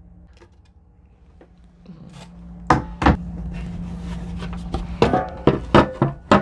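A run of sharp taps and knocks, several in quick succession from about three seconds in and loudest near the end, over a low steady hum: small objects being handled and set down on a hard surface.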